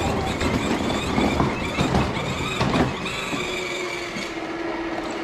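Kids' ride-on toy vehicle rolling off, its hard plastic wheels rumbling and knocking over the ground. About three seconds in, a steady electronic tone joins.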